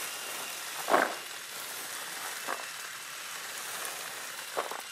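Freshly harvested olives and their leaves rustling and rattling as gloved hands scoop and sort them on a harvest net. There are three short bursts, about a second in, halfway through and near the end, over a steady hiss.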